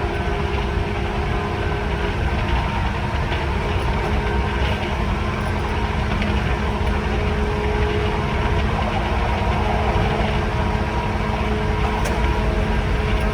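Running sound inside a 185 series EMU motor car: the MT54 traction motors and gearing hum in several steady tones over the rumble of wheels on rail, the train holding a steady speed.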